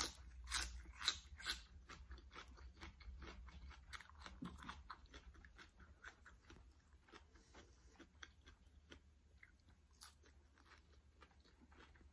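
Close-up chewing of crunchy food, with a few louder crunching bites in the first second or two, then quieter, irregular chewing.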